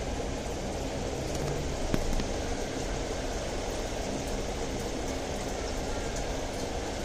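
Steady rushing noise with a low hum under it, and a single faint click about two seconds in.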